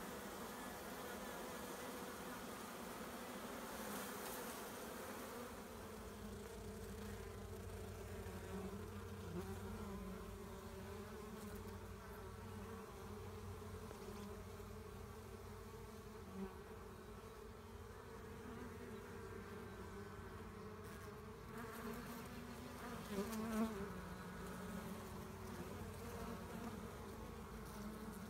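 A honeybee swarm buzzing in a steady, continuous drone of many wingbeats as the bees are handled and walk into their new hive.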